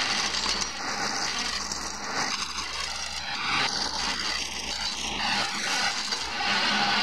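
Wood lathe running while a skew chisel cuts along a spinning wooden handle: a steady shaving noise from the cut over the low hum of the machine.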